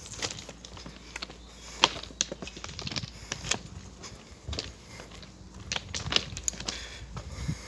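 Footsteps crunching on railway track ballast gravel, walked at an uneven pace, with sharp crackling crunches at irregular intervals.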